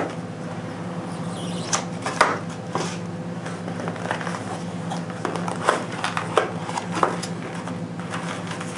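A cardboard product box being opened by hand: scattered light taps, scrapes and rustles as the lid comes off and a soft fabric carrying case is pulled out. A steady low hum runs underneath.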